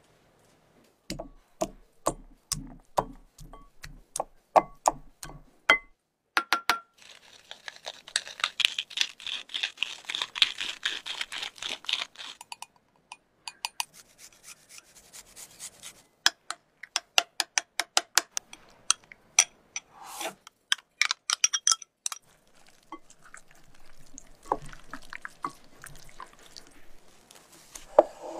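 Close-up kitchen preparation sounds: a run of crisp taps on a wooden cutting board, then a few seconds of steady rasping, then more light clicks and clinks of utensils against a small glass bowl.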